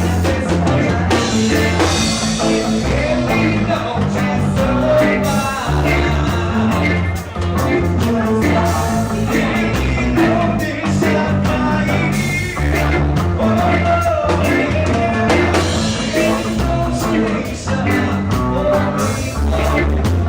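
A live band playing a worship song: a lead voice singing over a pitched low line that changes in steps and a steady beat.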